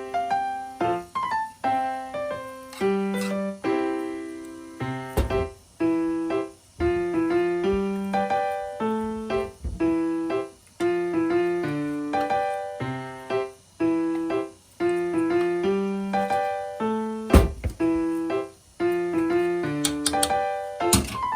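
Background piano music, a steady run of notes, with a few short sharp knocks among them, the loudest about three-quarters of the way through.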